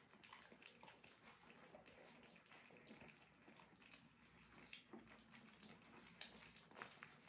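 Faint, quick, irregular wet lapping and smacking of several young French bulldog puppies eating soft food off rubber lick mats.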